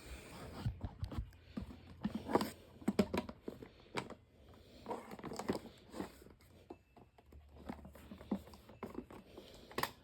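Handling noise: irregular clicks, taps and rustles as things are moved close to the microphone.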